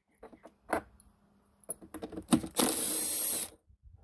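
A cordless drill runs in one short burst of just under a second, about two and a half seconds in, spinning a socket on an extension to back out a bolt on a jet ski's jet pump nozzle housing. Before it come a few light clicks of the socket and bolt.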